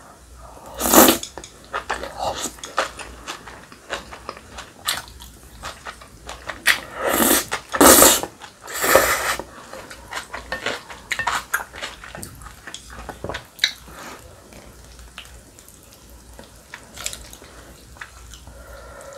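Close-miked eating of spicy cold bibim naengmyeon noodles. There are loud slurps of the noodles about a second in and again around seven to nine seconds in, with wet chewing and smacking between them.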